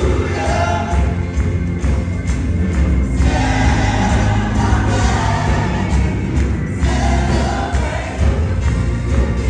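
Gospel music with a choir singing over band accompaniment and a heavy bass.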